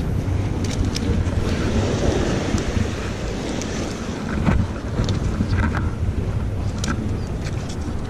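Wind buffeting the microphone over the wash of the sea against a concrete breakwater, a steady rumbling noise with a few sharp taps and clicks.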